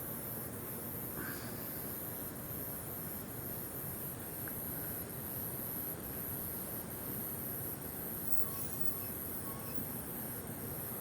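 A high-pitched chorus of night insects, pulsing at a steady even rate over a steady low hiss of background noise.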